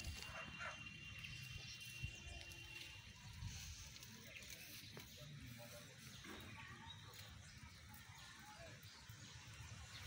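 Faint outdoor ambience with distant animal calls, and a thin high steady tone in the first three seconds.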